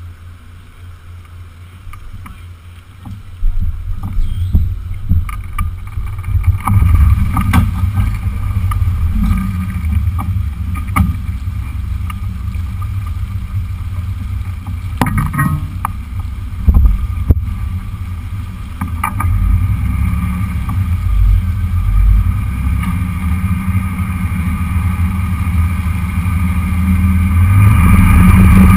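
A rigid-hull fast rescue boat's engine running at idle, with scattered knocks and clunks. Near the end the engine rises and gets louder as the boat gets under way.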